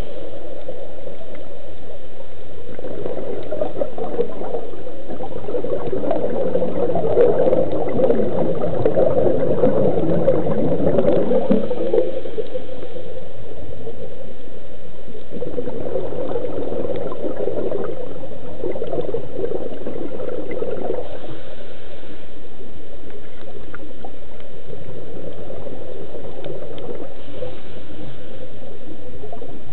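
Underwater bubbling from a scuba diver's regulator exhaust, coming in long surges with quieter spells between: the sound of a diver breathing out.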